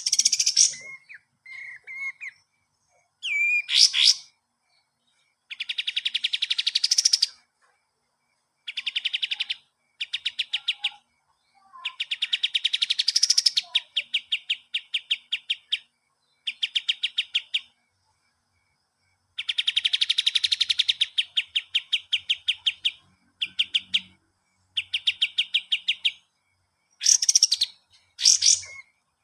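Kapas tembak songbird singing: bouts of rapid, evenly repeated notes, each bout a second or three long with short pauses between, mixed with a few sharp whistled calls near the start and end.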